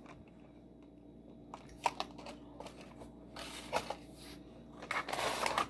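Plastic lure packaging being handled: scattered light clicks and short bursts of crinkling and rustling, the longest near the end.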